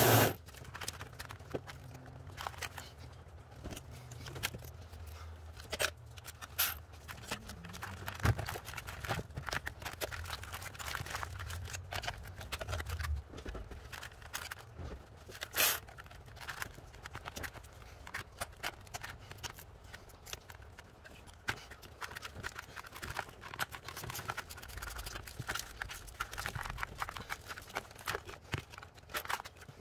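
Quarter-inch flex-head ratchet clicking in short spells while 10 mm bolts are loosened, mixed with scrapes and scattered light knocks of metal tools.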